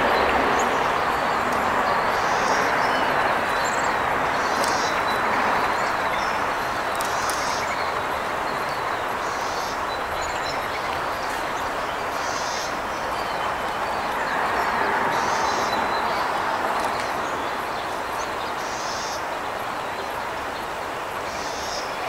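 Steady rush of distant traffic, slowly swelling and fading, with a short high chirp repeating about every two seconds.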